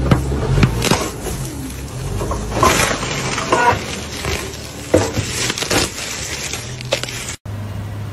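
A forklift fork crushing a soda can against a car windshield, the can spraying with a hiss, then the fork pushing into the windshield glass with a series of sharp cracks and crunches as it breaks. Near the end a steady low engine drone takes over.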